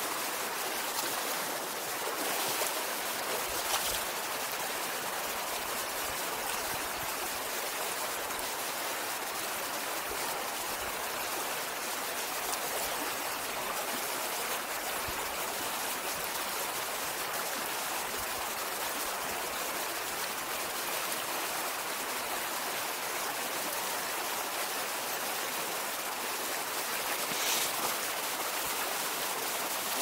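Shallow mountain stream running over rocks in a riffle, a steady, even water sound.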